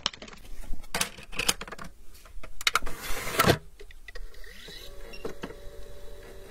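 Reel-to-reel tape recorder mechanism: a run of sharp clicks and knocks as its controls are worked, then a short motor whir about three seconds in that drops in pitch as it winds down. A steady low hum follows near the end.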